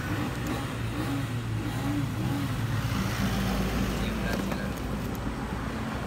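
Steady low rumble of a running vehicle engine, with a few faint clicks.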